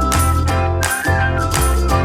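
Background music: an upbeat instrumental track with a bright tinkling melody over a steady beat and bass, about two beats a second.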